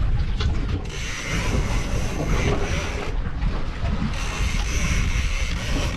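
Fishing reel being cranked under load, its gears and clicker ratcheting in stretches, with wind buffeting the microphone.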